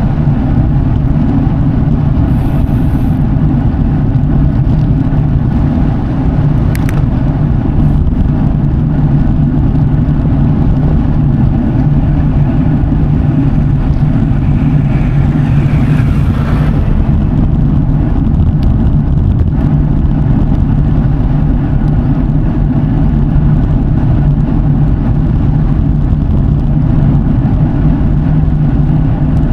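Road bike tyres humming steadily on the road surface while riding, a continuous low drone with hiss over it. A brief brighter swell of hiss comes about halfway through.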